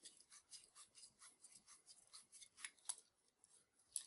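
Faint, rapid scraping clicks of an auto tube cutter for 3/4 inch copper pipe being turned around the pipe, its cutting wheel scoring the copper, with a few louder clicks near the end.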